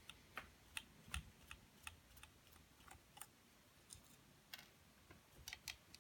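Faint, irregular small clicks of a screwdriver working out the tiny screws that hold a PS3 camera's circuit board, a few a second with a small cluster near the end.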